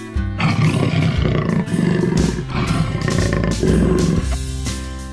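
Lion roaring, starting about half a second in, over background music.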